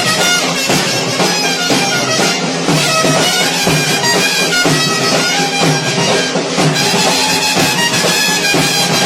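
Instrumental music with a steady beat and a sustained, reedy melody line over a held low note.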